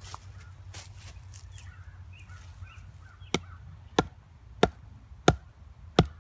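A heavy carved wooden club striking the top of a sharpened green-wood stake, driving it into dirt: five sharp knocks about two-thirds of a second apart, starting about halfway in.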